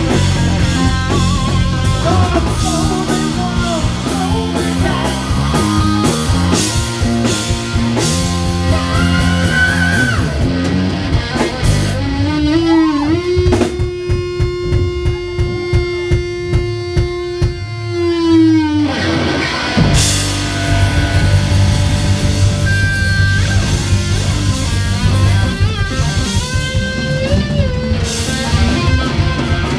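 Live rock band playing loud: distorted electric guitar over bass and drums. About 12 s in, the band breaks down to a long held note that slides up into place, rings over the drum hits and bends down near 19 s. Then the full band crashes back in.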